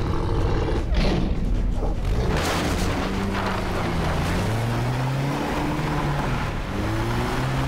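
A Land Rover's engine revs hard as the vehicle smashes through wooden wreckage, with crashes and splintering in the first few seconds. The engine then pulls away, rising in pitch as it accelerates.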